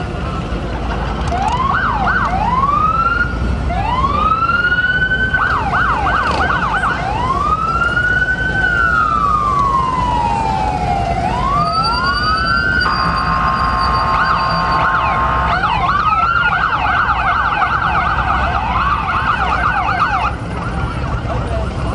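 Emergency vehicle sirens sounding, switching between slow rising-and-falling wails and rapid yelps, with a steady blaring tone for a couple of seconds midway. A low rumble runs underneath.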